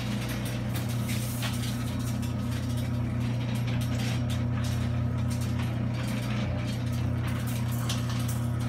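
Electric garage door opener motor running steadily as the sectional garage door rolls up, with clicking and rattling from the door's rollers and track.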